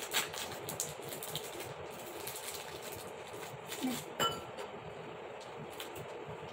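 Plastic biscuit wrappers crinkling and crackling as they are torn open by hand, in scattered small clicks. A brief clink about four seconds in, like a biscuit set down on a ceramic plate.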